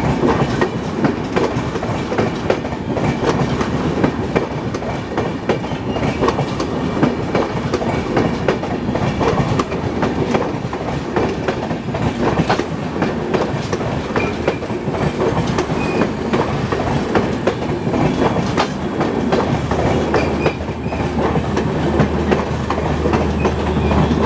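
Rajdhani Express LHB passenger coaches rolling past, the wheels clattering over rail joints over a steady rumble. About twenty seconds in, a steady low hum joins as the diesel generator power car at the end of the rake draws near.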